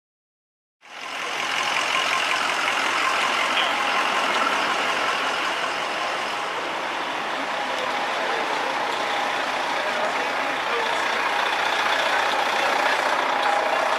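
Steady vehicle noise that cuts in abruptly after dead silence, about a second in, and then runs on evenly.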